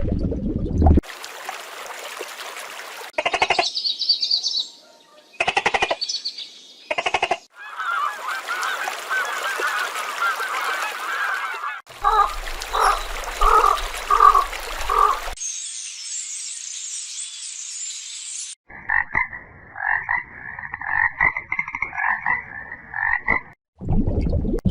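A string of short animal recordings cut one after another: brief high-pitched calls, a dense frog chorus, a run of pulsed calls, a high hissing trill, then rapid repeated honking or croaking calls.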